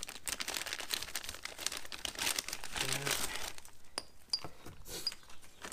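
Clear plastic parts bags crinkling and rustling as gloved hands rummage through them, with a few small clinks of the metal hardware inside around four seconds in.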